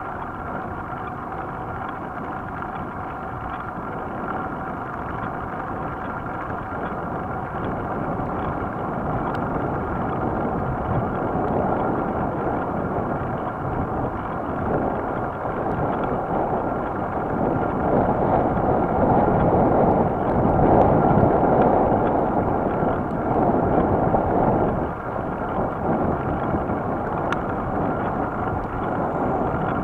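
Wind rushing over the microphone and tyres rolling on asphalt as a road bicycle rides along at speed; the noise swells in the second half, then eases.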